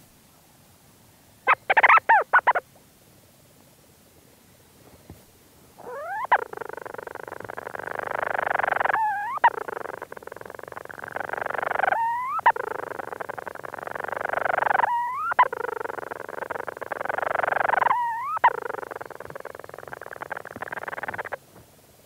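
Leach's storm petrel calling close up from inside its burrow. A short rapid chatter comes about two seconds in. From about six seconds a long purring churr follows, broken about every three seconds by a brief rising squeak, four times in all, and it stops shortly before the end.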